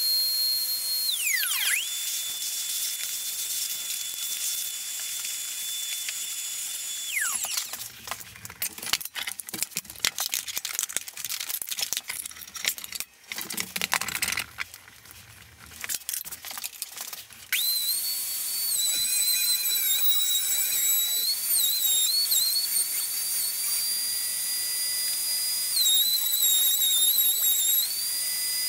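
Table-mounted wood router running with a high whine, then switched off and spinning down about seven seconds in. Metal clicks and knocks follow as the bit is changed with a wrench. The router starts up again at about eighteen seconds, its whine dipping and recovering in pitch as a wooden board is fed along the bit.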